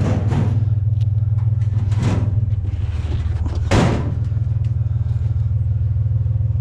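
Pickup truck engine idling steadily, with a few sharp knocks over it; the loudest knock comes a little over halfway in.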